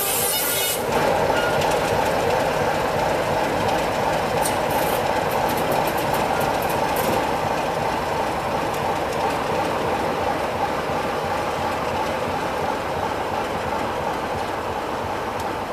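BR Class 33 diesel-electric locomotive, its Sulzer eight-cylinder engine running as it moves slowly away, the sound steady and fading gradually. A high wheel squeal stops about a second in, and a quick run of clicks from the wheels over rail joints and points comes between about four and seven seconds in.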